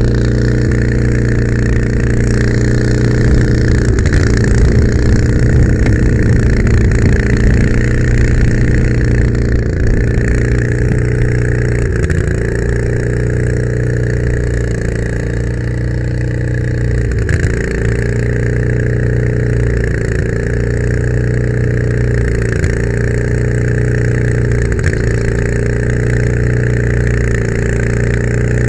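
A fire department pickup truck's engine running steadily as the truck drives along a rough dirt track. Its pitch dips and comes back up several times in the second half as the truck slows and speeds up.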